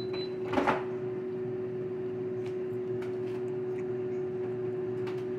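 A steady hum over a faint hiss, with one short noise from handling the food about half a second in.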